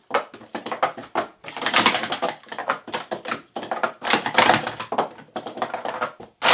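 Plastic sport-stacking cups (Stacking Korea set) clacking in rapid flurries of clicks as they are stacked up into pyramids and brought back down at speed.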